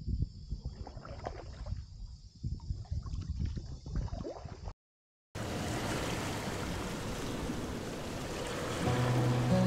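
Kayak paddle strokes splashing, with water gurgling around a sit-on-top kayak. After a short dropout about five seconds in, a steady rushing noise takes over, and music with held low notes comes in near the end.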